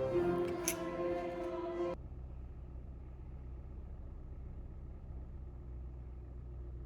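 Background music that cuts off suddenly about two seconds in, followed by a steady low hum of room tone.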